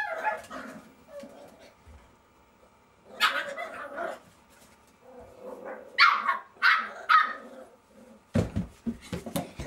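Jack Russell Terrier puppies barking and yelping in short high yaps, loudest about three seconds in and again around six to seven seconds in. Near the end comes a quick run of thumps.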